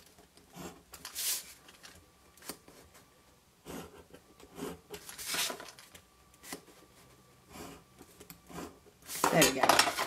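Metal-tipped stylus scoring lines into cardstock along a steel ruler: a series of short, dry scrapes, each a fraction of a second long, spaced irregularly.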